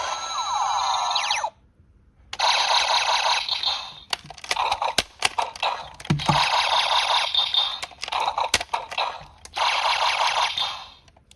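Bandai DX Door Gun toy playing electronic sound effects through its small built-in speaker, tinny and without bass, in several bursts of a second or two each. Sharp plastic clicks of the toy's door and trigger come in the short gaps between them.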